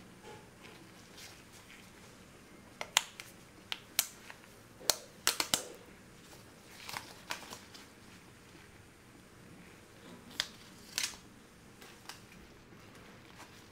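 Gloved hands peeling the plastic protective film off a new AirPods Pro charging case and handling the case: a run of sharp crackles and clicks, bunched about three to six seconds in and again near eleven seconds.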